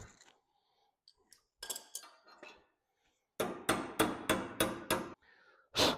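Hand hammer striking a rivet set to form a rivet head, the head a little off centre and being worked back towards true. A few light taps, then a run of about six sharp metal blows at roughly three a second, and one more near the end.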